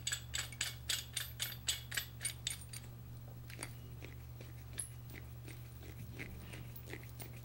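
A hand ratchet clicking, about four clicks a second, as it turns a steering gear puller's screw in against a clutch slave cylinder's piston; about three seconds in the clicking thins to a few scattered ticks.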